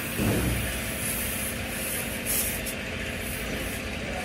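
Steady mechanical background rumble, with brief rubbing and scraping of a hand tool being worked into a tyre's tread at a nail puncture.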